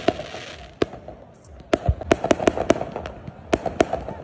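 Ground-launched fireworks battery firing, its shots bursting overhead with sharp cracks. There is a single crack about a second in, then a quick run of cracks near the middle and another run near the end.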